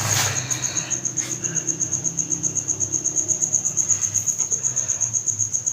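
Crickets chirping: a steady high trill pulsing about eight times a second, with a faint low engine hum beneath.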